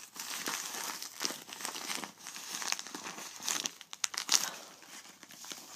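Padded mailing envelopes, a white plastic mailer and a yellow paper one, crinkling and rustling as they are handled, with sharper crackles about four seconds in.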